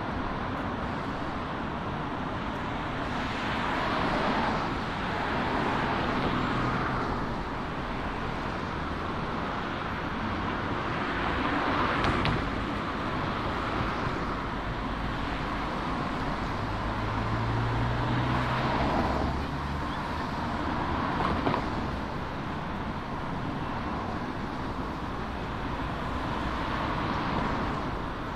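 City road traffic: cars passing one after another on the road alongside, each one's tyre and engine noise swelling and fading over a few seconds, over a steady background of traffic.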